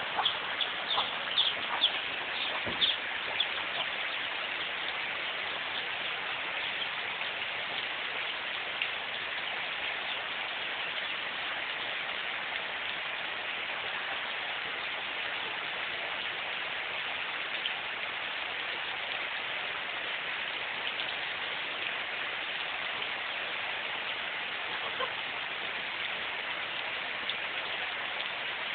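Heavy rain pouring down, a dense, steady hiss. A few sharper sounds stand out in the first three seconds.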